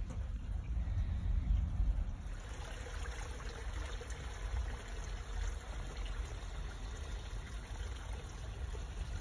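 Water trickling over rocks in a small garden stream, the trickle filling in about two seconds in, over a steady low rumble.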